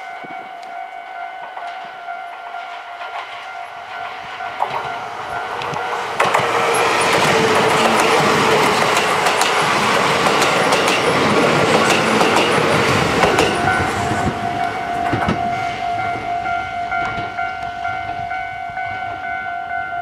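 Japanese level-crossing warning bell ringing steadily while a Kintetsu 30000 series Vista EX double-deck limited express passes close by: the train grows louder, runs past from about six seconds in to about thirteen seconds with wheels clacking over the rail joints, drowning out the bell, then fades as the bell rings on.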